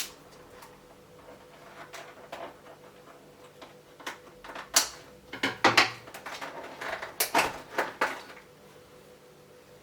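Small plastic parts and their packaging being handled and set down: scattered clicks, knocks and rustles, busiest from about halfway through to near the end.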